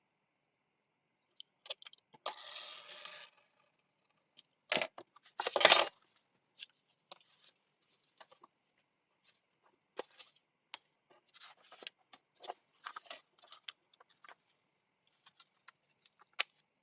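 Holes being poked through folded paper signatures by hand: scattered small clicks, taps and paper rustles, with a short scratchy rasp about two seconds in and two louder knocks about five seconds in.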